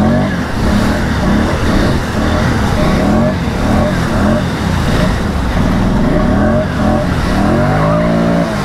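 ATV engine revving up and down again and again under throttle, over a steady rushing noise, with a longer rise near the end.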